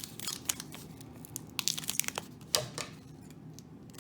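Trading cards being handled and flipped through: irregular crinkling, rustling and light clicks, with a few sharper snaps in the first three seconds and quieter near the end.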